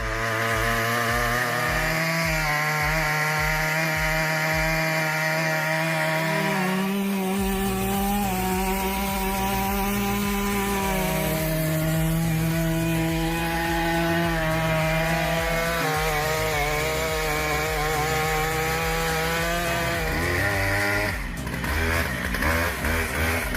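Stihl MS 881 two-stroke chainsaw with a very long bar running at full throttle through a big log. Its engine pitch steps up and down a few times as the chain's load in the cut changes, and the sound breaks up near the end.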